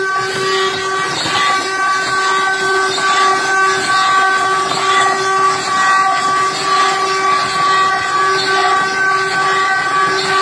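Brazilian ox cart (carro de boi) singing as it rolls: the wooden axle turning against the cart's wooden bearing blocks gives a steady, high, whistle-like drone with several overtones, wavering slightly in strength.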